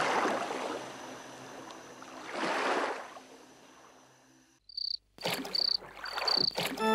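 Cartoon sound effects: sea waves washing in two swells that fade away. After a short silence, crickets chirp in regular high pulses about twice a second, with a few light clicks.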